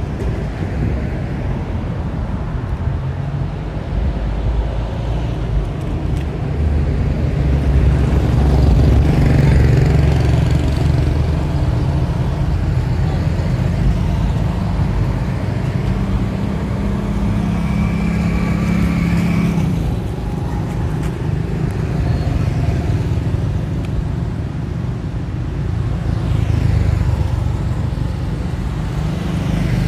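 Road traffic going by: engines of cars, a bus and motorbikes passing, over a steady low rumble, with one engine drone standing out for a few seconds around the middle.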